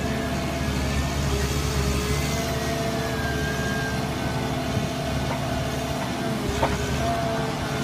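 Volvo EW160C wheeled excavator's diesel engine running steadily, with a held whine that shifts slightly in pitch as the grapple works. A single sharp knock about six and a half seconds in.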